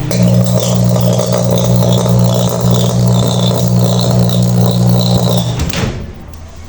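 Microwave oven running under power, with a loud, steady mains hum from its high-voltage transformer and magnetron and a crackling buzz of arcing over it. It cuts off with a few clicks near the end. The arcing is a short through a burnt, holed mica waveguide cover, or possibly a failing magnetron, as the repairer suspects.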